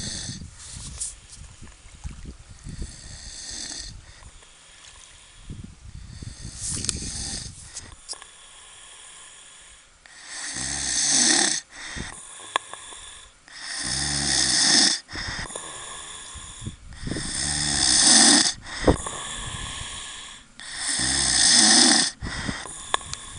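A sleeping man and dog snoring: quieter, uneven snoring at first, then about ten seconds in four loud, drawn-out snores come at a steady pace, one every three to four seconds.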